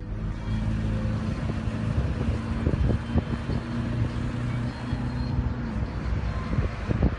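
Stopped highway traffic heard through a phone's microphone: car engines idling as a steady low rumble, with wind buffeting the microphone. A low hum in the rumble stops about six seconds in.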